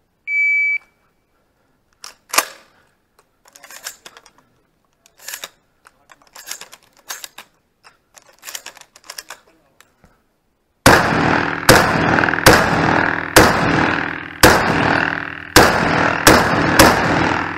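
An IPSC shot-timer beep, then a single sharp crack and several seconds of scattered clicks and rattles from handling and loading the shotgun. After that comes a rapid string of about eight loud shotgun shots, a little under a second apart, ringing off the covered range.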